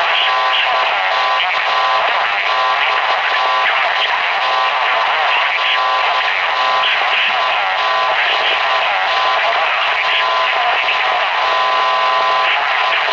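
A voice coming through a weather radio receiver, thin and narrow-sounding like a radio broadcast, over faint hiss.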